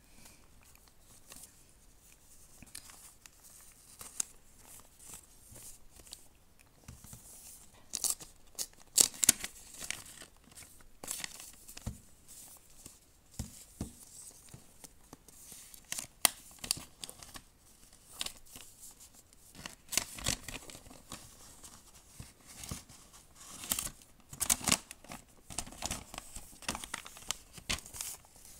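Gift-wrapping paper being torn and crinkled as a wrapped box is opened, in short spells of rustling and ripping with quiet gaps between them.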